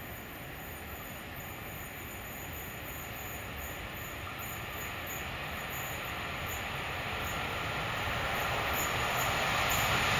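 Electric locomotive hauling a freight train of open wagons approaching, the steady noise of the train running on the rails growing evenly louder as it nears.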